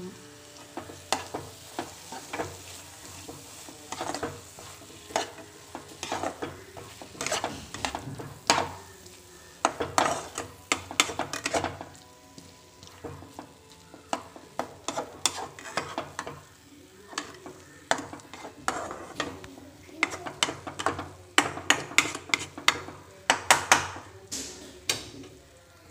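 A stainless steel spatula stirring a thick frying masala paste in a nonstick pan, scraping and tapping against the pan in quick irregular strokes over a light sizzle. The strokes come thickest near the end.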